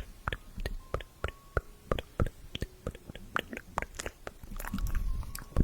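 Close-miked ASMR mouth sounds: short wet clicks and smacks of tongue and lips, about three or four a second, growing denser and wetter near the end.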